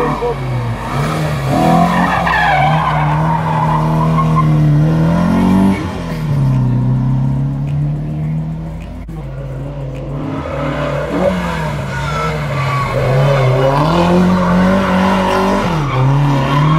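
Historic saloon race cars taken hard through a hairpin, engines revving up and then dropping sharply in pitch at each gear change, with tyres squealing.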